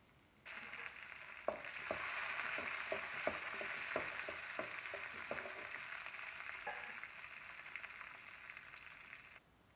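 Chopped onions and dried red chillies sizzling in hot oil in a metal kadai. A spatula scrapes and knocks the pan in a run of quick clicks for a few seconds. The sizzle starts about half a second in and cuts off suddenly near the end.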